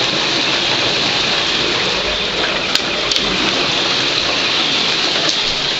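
Heavy hail pelting down, a dense, steady hiss and patter of hailstones on the street, roofs and parked cars. Two sharp ticks stand out a little under three seconds in.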